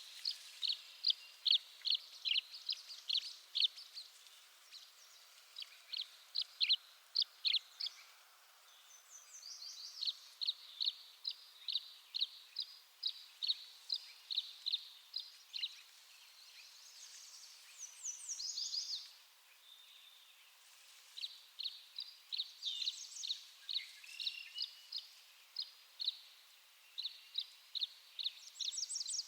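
Tree swallow calling: a long series of short, clear chirps, two or three a second, broken by brief pauses. A quick run of higher twittering notes comes a little past the middle, and a falling note about three-quarters through.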